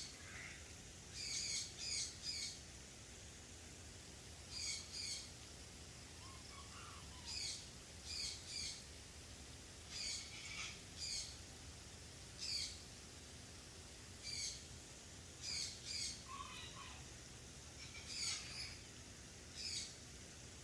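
Bird calls: short, sharp, high-pitched notes, singly or in quick groups of two or three, repeating every second or two.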